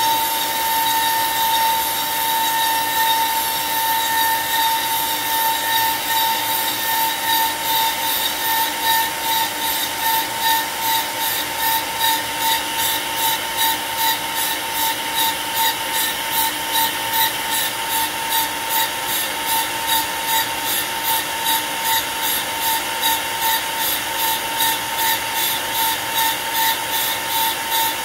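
AVID CNC router spindle cutting a wooden blank turned on its rotary axis during a roughing pass: a steady high whine over the noise of the bit chipping wood. From several seconds in, the cutting pulses evenly about twice a second.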